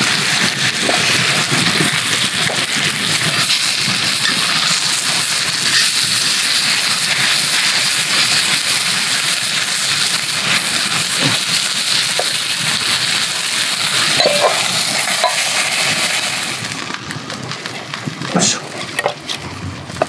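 Thick Miyazaki beef steaks sizzling loudly in an iron skillet over a campfire, the meat juices spitting and popping. About 17 seconds in, the sizzle drops away to a quieter background with a few sharp clicks.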